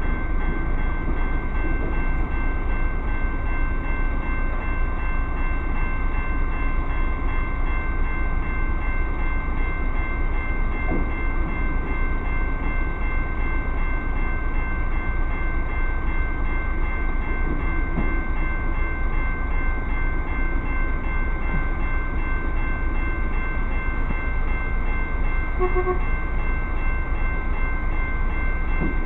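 Railroad crossing bell ringing steadily with the crossing signals activated, over a diesel truck engine idling. A brief tone sounds near the end.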